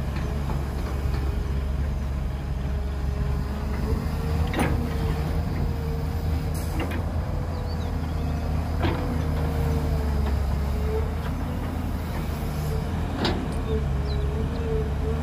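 Heavy diesel machinery running steadily, with a low rumble and a steady, slightly wavering whine. About four sharp knocks or clanks come at intervals.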